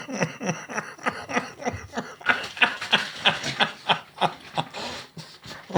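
A man laughing, a run of short breathy chuckles about three or four a second.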